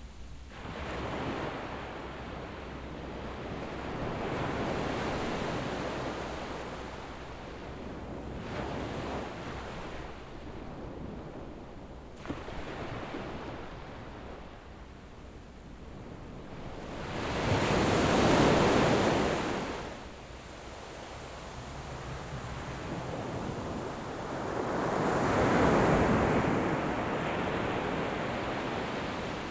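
Calm sea waves breaking gently on a sandy beach: slow surges of surf that swell, wash in and fade again. The biggest breaks come a little past halfway and near the end.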